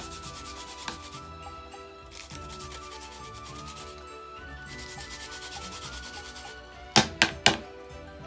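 A raw turnip is rubbed quickly back and forth across a flat metal grater, making a rasping scrape in three runs of even strokes with short pauses between them. Near the end there are three sharp knocks.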